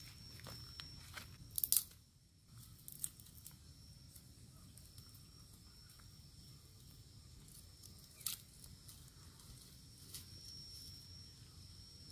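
Dry wood snapping and crackling: a few sharp snaps, the loudest about two seconds in and fainter ones later, over a quiet background with a faint steady high tone.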